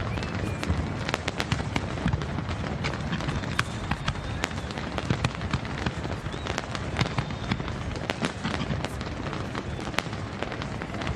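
Fireworks display: many sharp bangs and crackles in quick succession over a steady low rumble.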